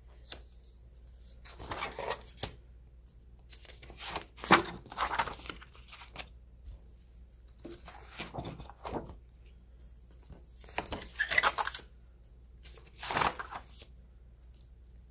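Paper pages of a disc-bound planner being turned one after another: about five rustling swishes a couple of seconds apart, the loudest about four and a half seconds in.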